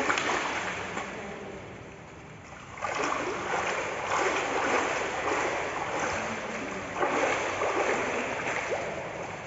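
Water splashing and sloshing in a swimming pool, fading a little early on and swelling again about three seconds in and about seven seconds in.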